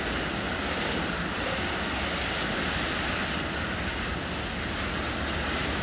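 Class 77 (Class 66-type) diesel freight locomotive with its EMD two-stroke V12 running as it hauls a train of wagons, heard from across the station as a steady low rumble with a broad hiss of wheel and air noise.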